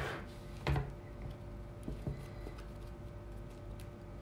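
A few light taps and ticks over a faint steady low hum: one sharper tap near the start, then a few softer ones about halfway through.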